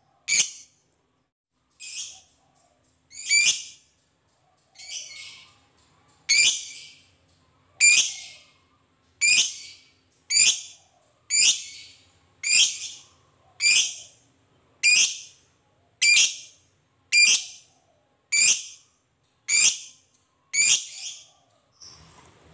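A lovebird 'ngekek': a long run of loud, shrill, chattering screech calls, about seventeen in all. After the first few they settle into a steady beat of about one a second, then stop near the end.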